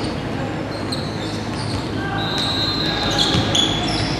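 Basketball game in a large gym: sneakers squeak on the court in several short, high chirps from about two seconds in, over a steady din of the hall, with a ball bouncing.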